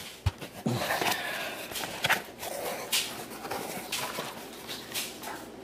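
Cardboard shipping box being opened by hand: the flaps scrape and the plastic-wrapped packing inside rustles, with scattered light knocks and crinkles.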